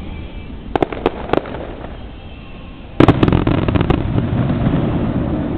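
Aerial fireworks going off: three sharp cracks about a second in, then a loud burst about three seconds in with a quick run of crackling pops and a low rumble that fades slowly.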